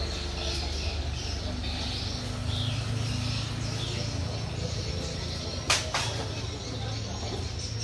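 A steady low rumble with small birds chirping over it, and two sharp clicks in quick succession about three-quarters of the way through.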